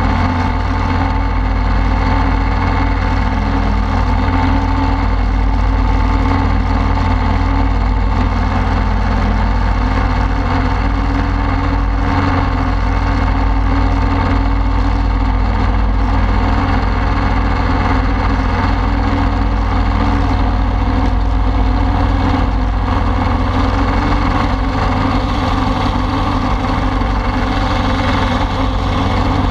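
Ultralight aircraft's engine and propeller running steadily in level flight, with wind noise on the wing-strut-mounted microphone.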